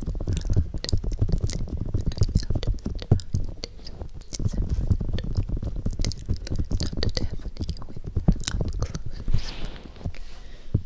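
Fingertips tapping and rubbing rapidly on the furry cover of a homemade binaural microphone: a dense run of soft, muffled taps, heavy in the low end, right at the mic.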